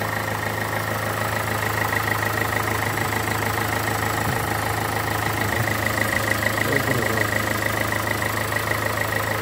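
Renault 1.5 dCi four-cylinder turbodiesel idling steadily, with its timing belt and tensioner freshly replaced, and the engine running well.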